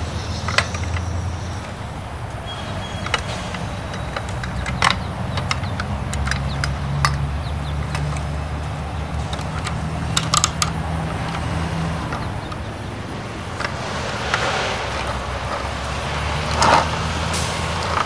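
Garbage-truck sound effects: a diesel engine idling with a steady low drone, its note stepping up for a few seconds in the middle, and short hisses of air near the end. Sharp plastic clicks and knocks from the toy front-loader's lift arms and dumpster being worked by hand.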